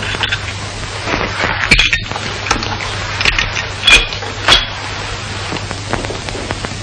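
A handful of sharp clinks and taps, with a short ring on some of them, as small hard objects are handled on a table. Under them run a steady hiss and a low hum.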